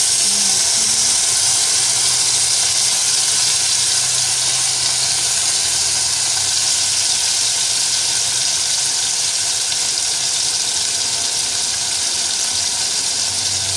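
Raw rump steak searing in hot oil in a frying pan: a steady, loud sizzle.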